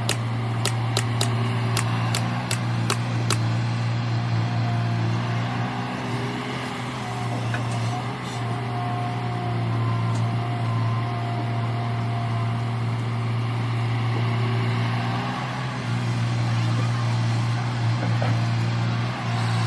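Diesel engine of an earthmoving machine (backhoe loader or excavator) running steadily under work. In the first few seconds there is a run of sharp metallic clicks, about three a second.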